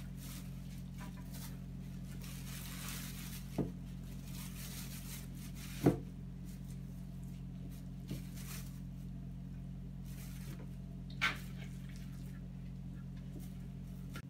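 Wet papier-mâché dough being pressed by hand around a glass bottle: a few soft knocks, the loudest about six seconds in, over a steady low hum.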